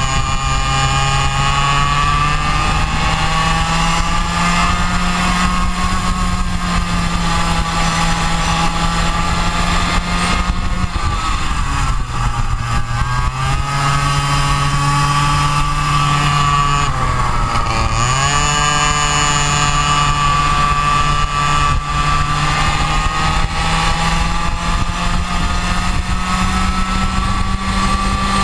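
Go-kart engine heard from onboard during a lap, its pitch climbing steadily as it accelerates along the straights. It drops back about eleven seconds in and falls sharply about eighteen seconds in as the kart slows for corners, then climbs again.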